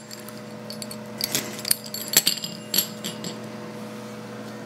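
Pizza cutter and crisp baked chip sheet being worked on a metal baking sheet: a run of light metallic clinks and crackles for about two seconds, then only a faint steady hum.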